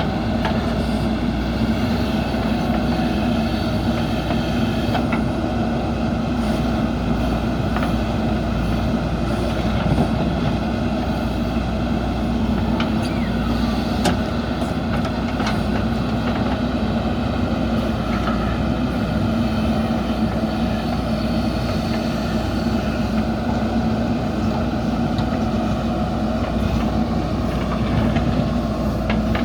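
JCB 3DX backhoe loader's diesel engine running steadily, with a couple of short knocks about ten and fourteen seconds in.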